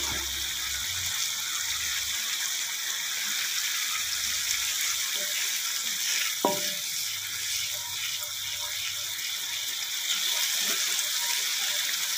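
Chili paste (sambal) frying in hot oil in a wok, a steady sizzling hiss as it is stirred with a wooden spatula. A short sharp sound stands out about halfway through.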